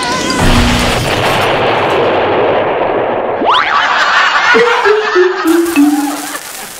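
Cartoon sound effects for a blast of smoke sweeping across a landscape: a long rushing, rumbling explosion noise, then a quick rising whistle about three and a half seconds in, followed by a descending run of about five notes that fades out.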